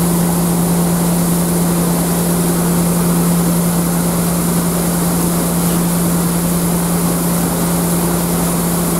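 Small passenger ferry's engine running steadily while under way, a constant low hum with a steady hiss of rushing water and wind over it.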